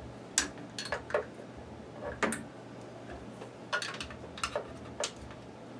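Irregular light clicks and taps of small hard parts being handled and set against the mill, about ten in all.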